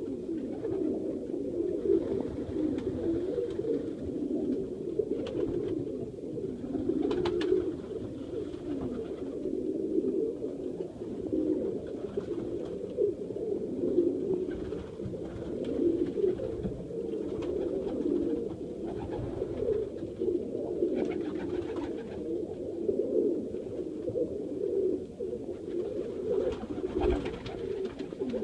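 A loft full of Serbian highflyer pigeons cooing continuously, many birds overlapping into one low, steady warble, with a few sharp taps here and there.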